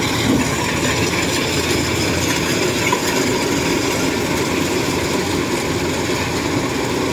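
Kubota DC93 rice combine harvester running steadily at close range, its engine and machinery making an even, unbroken drone.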